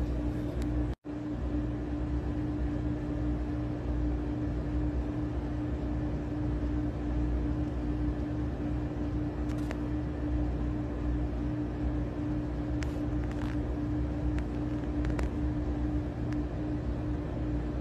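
Steady low machine hum with a constant mid-pitched tone, like a fan or household appliance running, with a few faint clicks.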